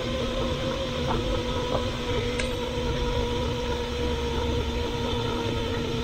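Instant Pot pressure cooker's steam-release valve open for a quick release, venting pressurised steam in a steady hiss with a faint steady tone underneath, the pot's pressure being dumped after cooking.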